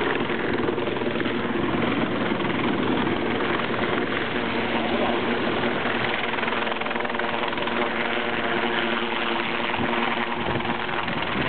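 Coast guard rescue helicopter hovering low over the water, its rotor and engines running steadily.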